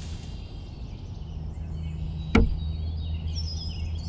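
A single sharp snap about two and a half seconds in, over a steady low hum, with faint high bird-like chirps near the end.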